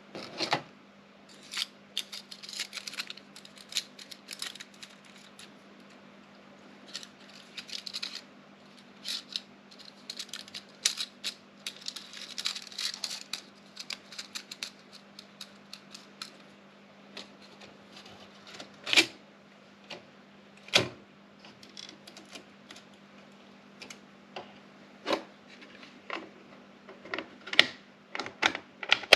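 Erika 3004 electronic daisy-wheel typewriter typing: runs of rapid, sharp clicking strikes, with a few single, louder clacks in the second half.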